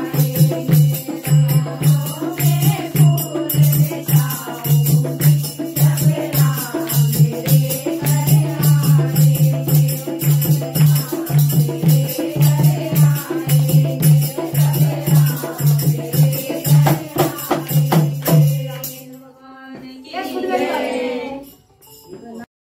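Women singing a bhajan to a steady dholak beat with jingling hand cymbals. The music stops about 19 seconds in, a short voice follows, and then the sound cuts off suddenly.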